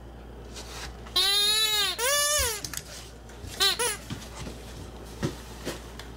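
Squeaky toy football being squeezed by a dog's bite, squeaking in pairs with a rising-then-falling pitch: two long squeaks about a second in, then two short ones a little past halfway.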